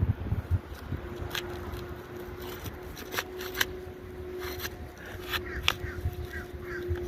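Scattered sharp clicks and crackles of old, brittle asphalt shingles being pried and worked loose by hand, the shingles stuck fast to the ones beneath (mat transfer).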